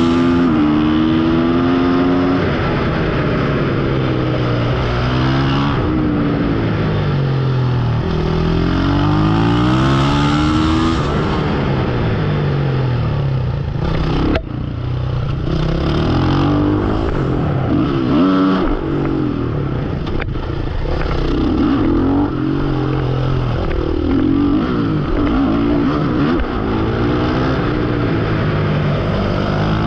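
Supermoto motorcycle engine on a track lap, revving up and dropping back over and over as it accelerates out of corners and slows into them. There are two sharp clicks, one about halfway through and one a few seconds later.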